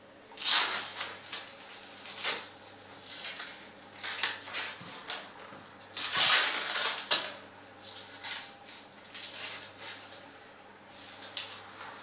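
Hook-and-loop (Velcro) straps of a bike-antenna mount being pulled open and pressed down in several rasping tugs, the longest about halfway through. Sharp metallic clicks come from the strap's metal buckle being handled, one about five seconds in and one near the end.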